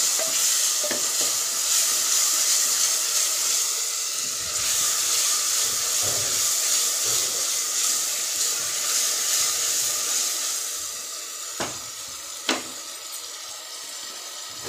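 Onions and chopped tomatoes sizzling in hot oil in an open pressure cooker, stirred with a wooden spoon. The sizzle drops noticeably after about ten seconds, followed by two sharp knocks.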